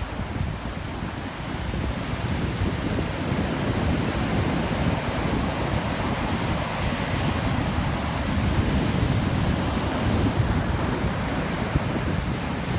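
Heavy ocean surf from a typhoon swell, a continuous wash of breaking waves that swells a little louder after a couple of seconds. Wind buffets the microphone throughout.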